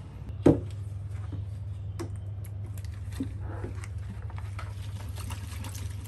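Soapy water in a plastic bucket being stirred and splashed with a dish brush, with small clicks and taps. One sharp knock about half a second in, over a low steady hum.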